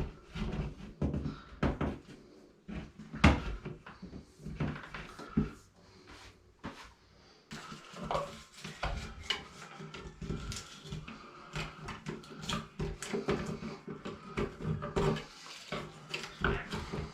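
Irregular knocks, clunks and rubbing from hands-on work on electrical cable in a wall cavity, several sharp knocks standing out among softer handling noise.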